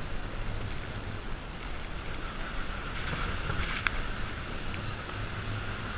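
Water rushing under a four-person raft on a water-coaster slide, heard as a steady rumble and hiss, with spray and wind noise on an action camera. A few short sharp ticks come about halfway through.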